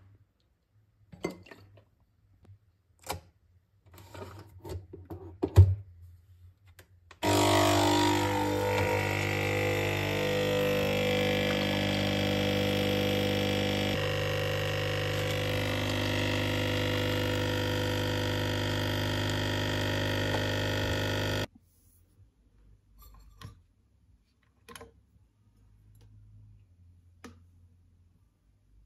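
Capsule espresso machine's pump running steadily for about fourteen seconds as it brews coffee into a glass. It starts abruptly, loudest at first, and stops suddenly. A few light clicks and knocks come before and after it.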